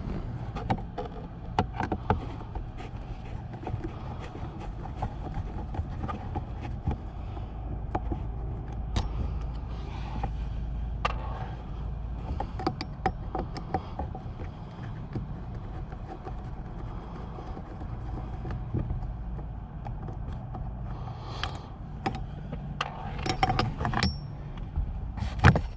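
Phillips screwdriver backing out the screws under a car's plastic center-console armrest lid: scattered small clicks and ticks of metal on plastic, busier near the end, over a steady low hum.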